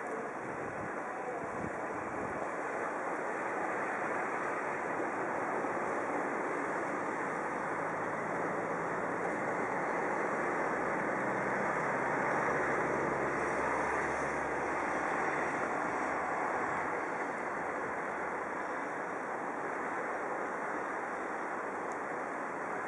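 Steady hiss of road traffic: car tyres on a snow-covered road and engines passing by. It swells about halfway through as a line of cars goes past close by, with a low engine hum underneath.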